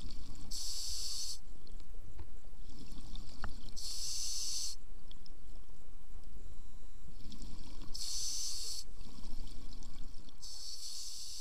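A scuba diver breathing through a regulator underwater. Four exhalations come out as bursts of bubbles, each under a second long, roughly every three to four seconds, with quieter inhalations between them.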